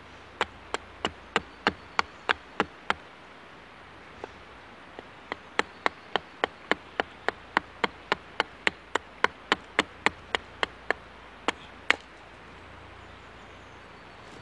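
Hatchet blade chopping into a wooden spoon blank braced on a log, short controlled cuts roughing out the handle: sharp wooden knocks at about three a second, a run of about nine, two lone strikes, then a longer run of about twenty, ending with two single strikes.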